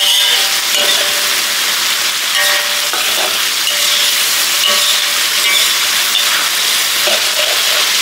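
Blended dried-chili paste with onion and lemongrass sizzling in oil in a steel wok. It is being stirred with a metal spatula that scrapes and clinks against the wok now and then.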